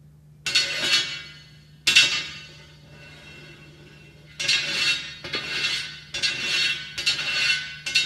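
A series of sharp clinking strikes, about seven at uneven intervals, each ringing out and fading, over a faint steady hum.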